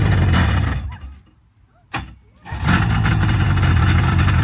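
1995 Sea-Doo SPX two-stroke jet ski engine catching on its first start after oil was cleared from a crankcase flooded through a leaking rotary seal. It runs for about a second, dies, stays quiet for about a second and a half apart from a single click, then fires again and keeps running steadily.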